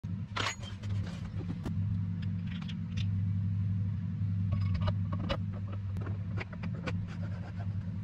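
Steady low electric motor hum, with scattered light metallic clicks and taps on top.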